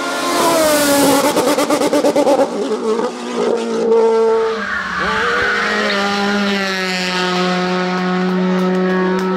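Race car engines on a hillclimb course. First a sports prototype goes past at high revs, its engine note falling in pitch. About halfway in, a second car revs up out of a hairpin with a brief tyre squeal, then holds its engine at steady revs.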